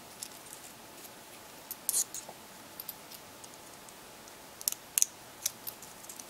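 Small sharp clicks and light scratches of a smartphone's internal parts being handled and pried apart during disassembly, with a few clicks close together near the end.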